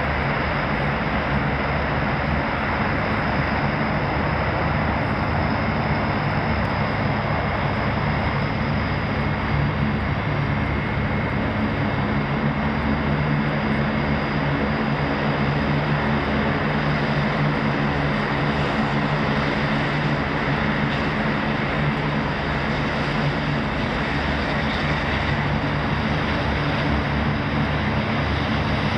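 The four Rolls-Royce AE 2100D3 turboprop engines of a C-130J Super Hercules running as it taxis: a steady drone with a low, constant propeller hum beneath it.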